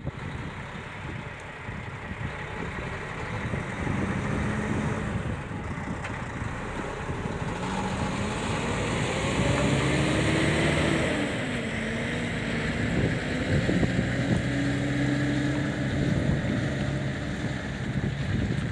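Heavy diesel truck engine of a road train running as its multi-trailer set of side-tippers rolls slowly past, the engine note shifting up and down in pitch partway through. Underneath is a steady rumble of tyres and trailers.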